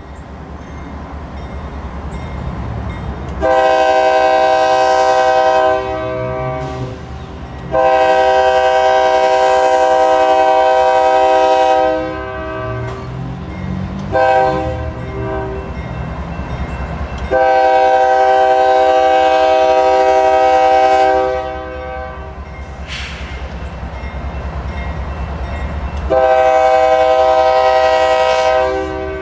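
Freight locomotive's Nathan K-series multi-chime air horn sounding the grade-crossing pattern of long, long, short, long, followed by another long blast near the end. Under it, the low rumble of the approaching train's diesel engines grows steadily louder.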